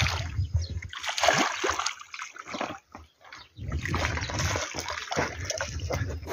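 A hooked black bass thrashing and splashing at the water's surface close to the bank as it is reeled in, in irregular bursts, with a low rumble in the second half.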